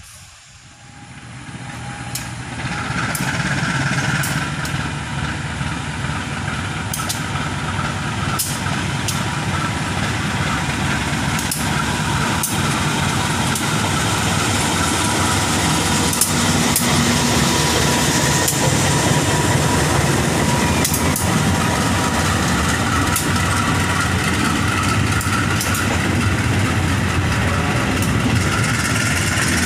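A KAI diesel-electric locomotive passes close with its engine running, then freight wagons roll by, the wheels rumbling on the rails with scattered sharp clicks. The sound swells over the first few seconds as the train comes near, then holds steady and loud.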